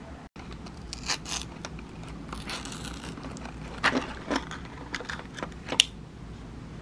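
A tablet being pushed out of a foil-backed blister pack: plastic crinkling and foil crackling, with several sharp pops and clicks, the loudest near the end.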